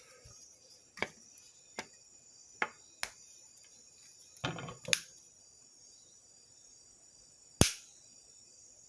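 Small hand tools clicking and knocking during electrical wiring work, with a short rattle about halfway through and a loud sharp snap near the end.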